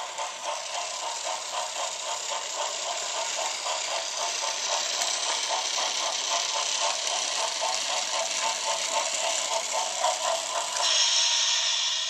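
Motorised Trackmaster Remote Control Thomas toy train running along plastic track, its small electric motor and gears making a rapid, regular rattling clatter; the sound changes briefly near the end.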